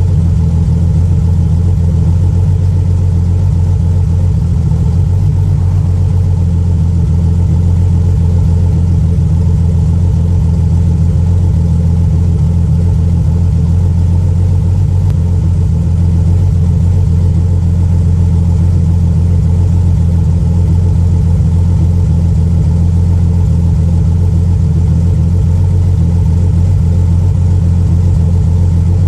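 The Regal's engine exhaust running at a steady idle: a loud, deep, even drone that does not change in pitch or level.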